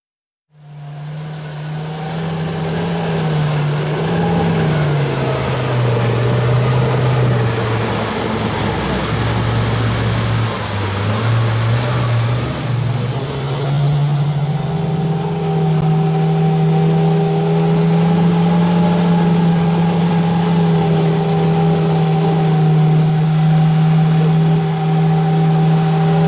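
A motor vehicle engine running under way, over a steady rushing noise. Its pitch dips and wavers for several seconds, then rises at about the middle and holds steady.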